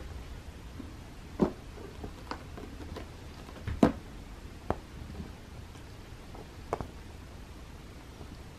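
A cat playing on a carpeted scratching ramp, pouncing and batting at a feather boa toy. Its paws land in a handful of irregular light thumps and taps; the loudest comes about four seconds in.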